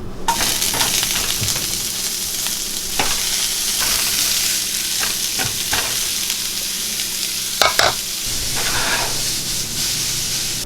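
Food sizzling steadily in a frying pan, with a few knocks of a utensil against the pan.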